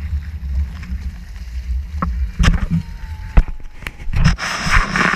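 Hobie Tandem Island sail trimaran under way: water slapping and splashing against the hulls while wind buffets the microphone, with a few sharp knocks about halfway through and a hissing burst of spray near the end.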